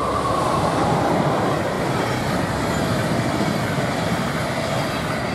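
Intercity train hauled by a DB class 101 electric locomotive passing close by: a steady loud rush of wheels on the rails as the coaches go past, fading near the end.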